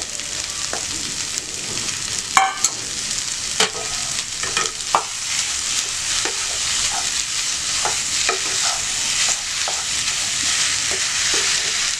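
Minced chicken and cauliflower sizzling steadily in a pan as a wooden spatula stirs them, with scattered scrapes and knocks of the spatula against the pan.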